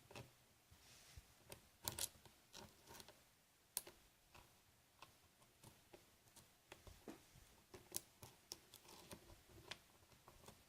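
Faint, irregular small clicks and scrapes of a hook pick probing the pin stacks of a Master Lock Lockout padlock's core under light tension, searching for the first binding pin.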